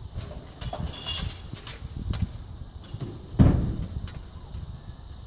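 Steel wheel clamp and its chain being handled and lifted out of a van, the chain rattling and clinking about a second in, then a heavy thump a little after three seconds.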